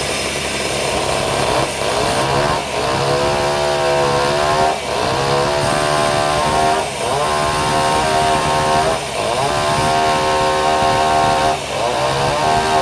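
Small saw engine running at high revs, its pitch dropping sharply and climbing back about every two seconds, five times over.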